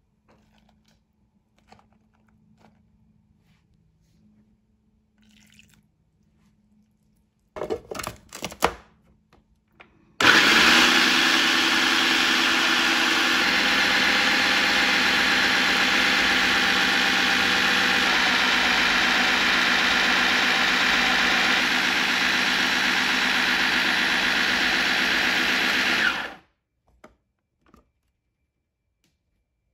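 A few short knocks and clicks, then an electric food processor's motor starts and runs steadily for about sixteen seconds, blending raw tilapia, cornstarch and seasonings into a smooth fish-ball paste, before cutting off suddenly.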